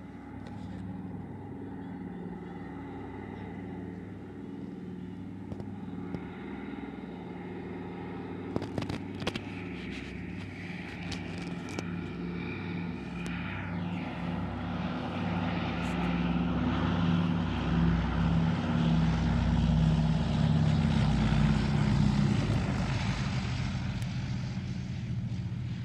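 Douglas C-47B's twin radial engines running on landing approach with gear down, a steady propeller drone that grows louder as the plane comes in low and is loudest about three-quarters of the way through. A few sharp clicks about nine seconds in.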